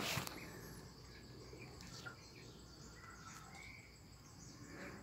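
Faint outdoor ambience: scattered short bird chirps over a low insect hum, after a brief burst of noise at the very start.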